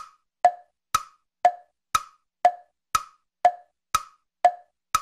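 Wood-block-style tick-tock percussion: short, dry knocks every half second, alternating a higher and a lower pitch in a steady, even beat.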